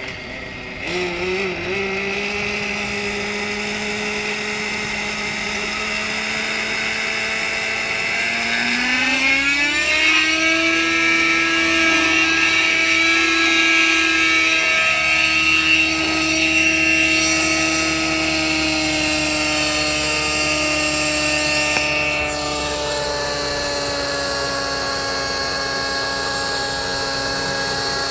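Radio-controlled helicopter's O.S. 50 nitro glow engine starting about a second in and idling, then rising in pitch as the rotor spools up to hover, running steadily with the rotor whirring; its pitch eases slightly near the end.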